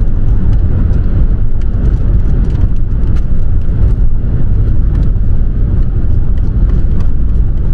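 Steady low road rumble of a car driving along, tyre and engine noise heard inside the cabin, with a few faint scattered clicks.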